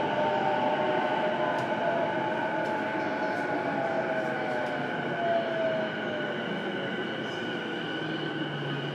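Inside a stationary JR East E233 series electric train car standing at a platform: a steady high whine and hum from the train over platform noise, while a falling whine fades away over the first six seconds or so.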